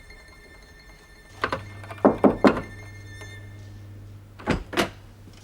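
Knocking on a door: a single knock, then three quick knocks about half a second later, and two more knocks near the end.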